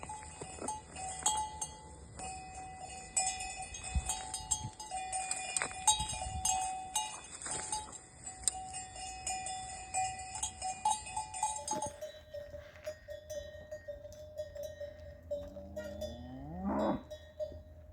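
Cowbells on grazing livestock clanking irregularly, several bells overlapping. About two-thirds of the way in the clanking thins out, and one cow moos near the end with a rising call.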